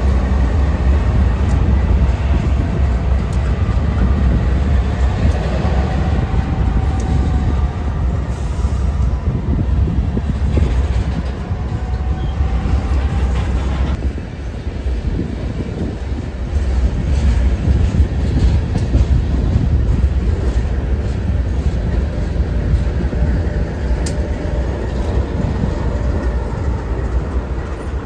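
BNSF freight train passing close by: GE diesel locomotives rumble past, then covered hopper cars follow with wheels clicking over the rail joints. A mid-train diesel locomotive comes by near the end.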